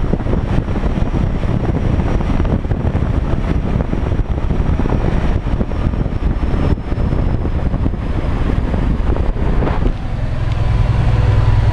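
Early-1990s Kenworth logging truck under way, heard from inside the cab: a steady diesel engine drone mixed with road and wind noise. The engine's low hum comes through more evenly near the end.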